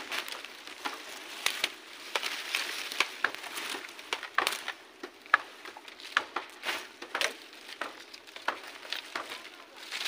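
Dry cut branches, twigs and leaves crackling and snapping as a pile of slash is pulled and gathered by hand, with irregular sharp snaps over a steady rustle.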